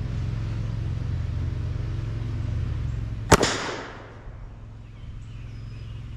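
A single shot from a Pedersoli Liegi screw-barrel black-powder percussion-cap derringer about three seconds in: a sharp crack with a short ringing tail. A steady low rumble runs underneath and fades just after the shot.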